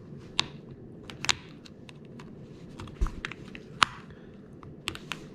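Small sharp plastic clicks and ticks, a handful scattered over a few seconds, from a flathead screwdriver prying the internals out of a 2017 Ford Explorer key fob's plastic case.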